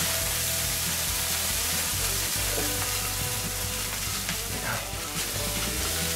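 Beef burger patties sizzling steadily on the grill.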